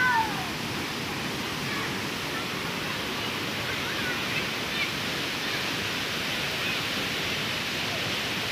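Floodwater rushing steadily across a road, an even wash of noise.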